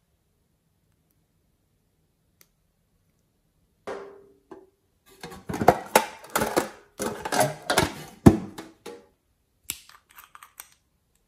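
Metal tin box being opened and handled, with a glass nail-polish bottle knocking and rattling against the tin inside, in a run of sharp clattering knocks that starts about four seconds in and lasts some five seconds, then a few lighter clicks near the end.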